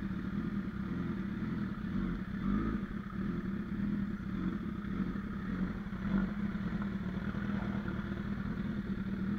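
Honda CBR1000RR Fireblade's inline-four engine running steadily at low revs while the bike creeps along at walking pace.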